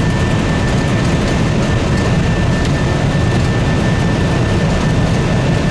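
Steady, loud rush of an Airbus A320's jet engines at takeoff thrust and the rushing air, heard from inside the cockpit during the takeoff run and climb-out. A faint thin steady tone sits above the noise.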